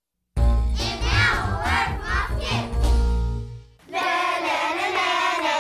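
A children's song: music with a group of children singing, starting suddenly after a moment of silence. About four seconds in, the voices move into long held notes.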